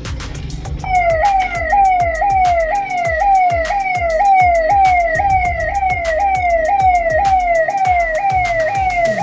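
Emergency-vehicle siren sounding a fast cycling wail, each cycle jumping up and sliding down in pitch, about two a second. It starts about a second in, over a steady, rapid clicking beat.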